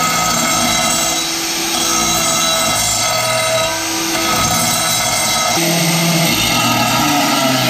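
Electric angle grinder with a cutting disc running and cutting into a steel shovel blade, its steady whine shifting in pitch a few times as the load changes.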